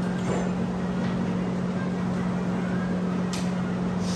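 A steady low machine hum, with two faint sharp ticks near the end.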